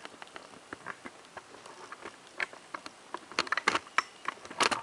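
Irregular light clicks and taps, coming closer together in the last second and a half.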